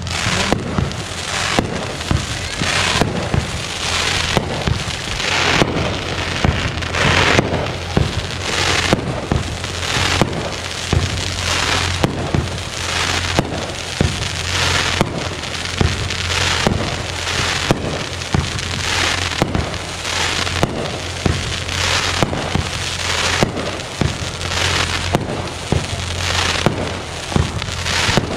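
Consumer fireworks going off in quick succession: a dense, continuous run of bangs, pops and crackling from aerial shells and firecrackers. A steady low hum runs underneath.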